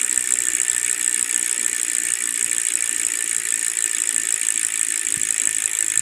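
Ragusa R100 rear hub's freehub buzzing as the wheel freewheels, its pawls clicking too fast to count in a steady, dense ratchet.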